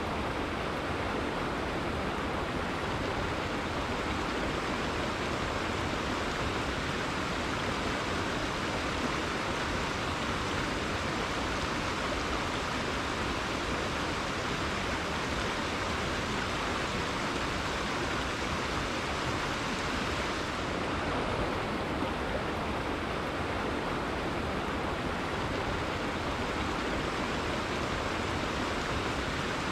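River water flowing steadily over rocks, a constant rushing with no breaks.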